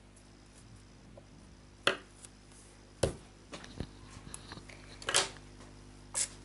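A few sharp knocks and clicks, about two seconds in, at three seconds and just before four, then two short rustles over a faint steady hum.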